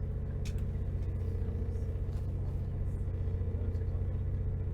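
Steady low rumble of a CrossCountry passenger train running along the line, heard from inside the carriage.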